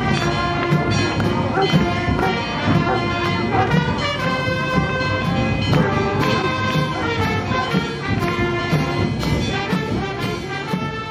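Brass band playing a tune with a steady beat.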